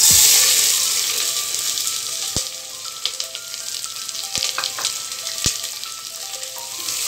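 Sliced onions dropped into hot mustard oil: a loud sizzle that starts all at once and slowly eases off as the onions begin to fry, with a few sharp ticks along the way.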